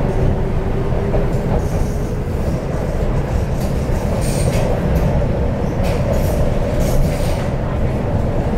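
Interior running noise of an MTR CNR Changchun EMU (C-train) motor car with IGBT-VVVF traction: a steady heavy rumble of wheels on rail with a faint humming tone. Several brief high squeals and hisses about halfway through.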